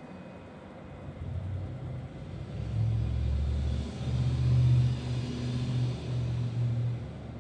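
A low, uneven rumble that builds over the first few seconds, is loudest around the middle, and eases off near the end. The last of a ringing bell fades out at the very start.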